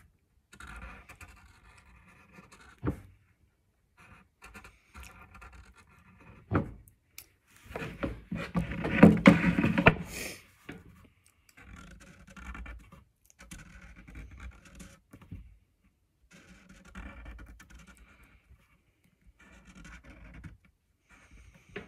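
Marker tip scratching along a hockey stick shaft in short runs of strokes with pauses, as printed lettering is traced over. Near the middle there is a louder stretch of knocking and rustling from the stick or marker being handled, with a few sharp clicks elsewhere.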